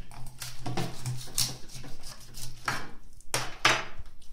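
Kitchen knife cutting through a whole raw chicken on a baking tray, in about four short rough strokes, the loudest near the end. A low steady hum runs underneath for the first three seconds.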